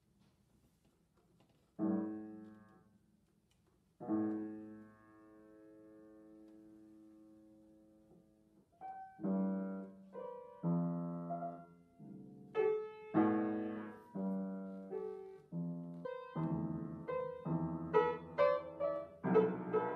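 Piano being played haltingly: a single chord about two seconds in, then a chord held for several seconds. From about nine seconds, chords and notes come steadily faster and louder.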